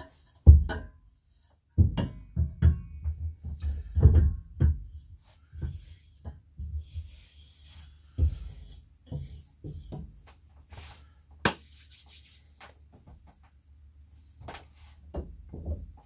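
A white vessel sink being set onto its base and shifted into place by hand: a string of knocks and bumps with some scraping. A single sharp click comes about eleven seconds in.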